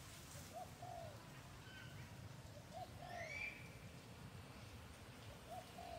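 A dove cooing, a short note then a longer one, repeated three times about two and a half seconds apart. A different bird gives one brief higher chirp about halfway through.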